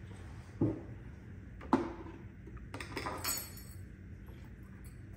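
Small hard objects knocking and clinking as they are handled: two sharp knocks, about half a second and just under two seconds in, then a short ringing metallic clinking about three seconds in.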